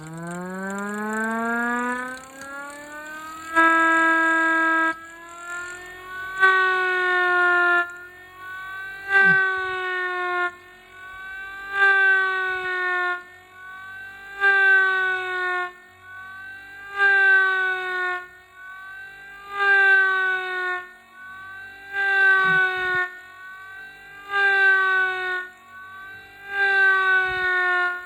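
Homemade eight-port mini siren spinning up with a rising wail, then pulsed by a hand-operated damper. It gives about ten loud blasts roughly every two and a half seconds, with the tone dropping to a quieter note between them.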